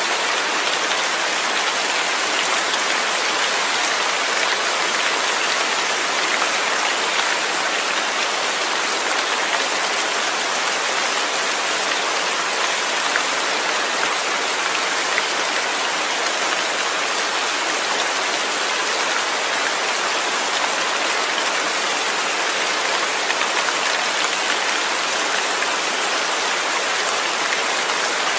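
Steady heavy rain falling and pattering on surfaces, an even hiss with fine spatters of drops throughout.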